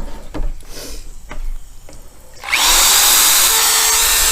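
A few light knocks, then about two and a half seconds in a power drill starts up, spins up quickly and runs steadily, driving a sanding disc over an acrylic windscreen during wet sanding.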